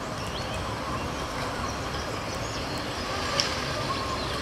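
Steady urban outdoor ambience: a continuous traffic rumble and hiss.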